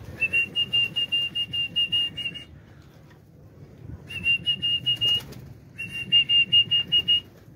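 A pigeon keeper's high whistle blown in rapid trilling pulses, about seven a second, in three bursts with short pauses between: a call to the pigeons in flight.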